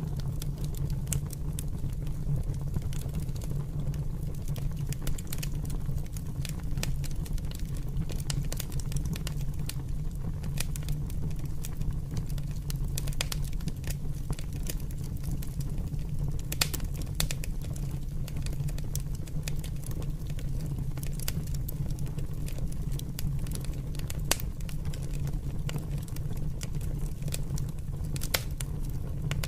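Open fire burning: a steady low rumble of flames with frequent sharp pops and crackles scattered throughout.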